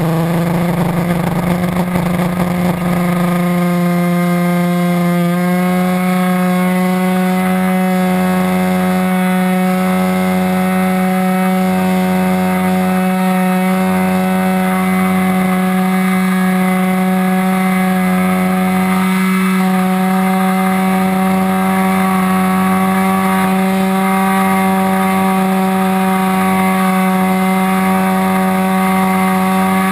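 Engine of a 40-size R/C trainer plane heard up close from a camera mounted beside it: a steady, high-pitched buzz at high throttle. It sounds rougher for the first few seconds during the takeoff run, steps up slightly in pitch, then holds steady in flight.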